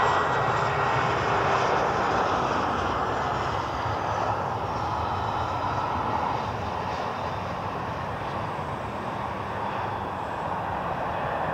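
KLM Cityhopper Fokker 70's two rear-mounted Rolls-Royce Tay turbofans running at landing power as the jet flares and touches down. A steady jet rush with a faint high whine in the first second or so, easing off slowly.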